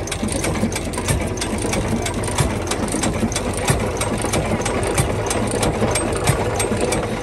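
Antique stationary engine running and driving an old-fashioned ice cream freezer: steady rapid mechanical clatter of clicks over a low, even hum.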